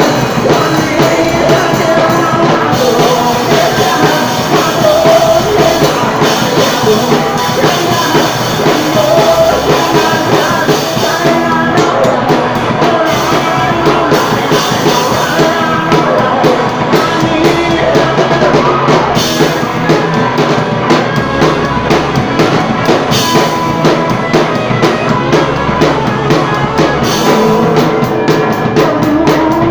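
Live rock band playing a song, with drum kit and a singer's voice over the band.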